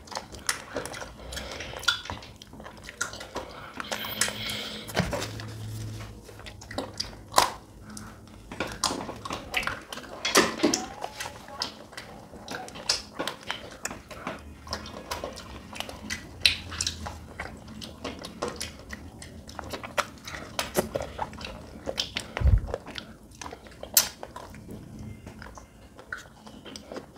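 Close-up eating sounds of children biting into and licking chocolate-coated ice cream bars: irregular small bites, smacks and chewing, with the crisp chocolate shell cracking.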